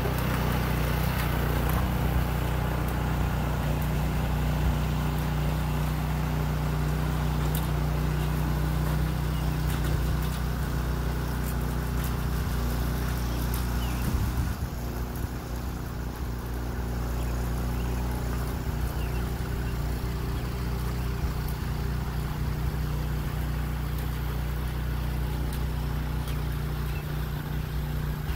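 Rear-tine rototiller's small gasoline engine running steadily under load while it tills sand into clay soil. It grows a little fainter about halfway through as the tiller moves off.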